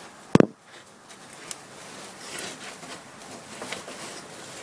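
A sharp knock just under half a second in, then faint rustling and a few light ticks of a hand working the mounting screw of a 49cc mini dirt bike's carburettor.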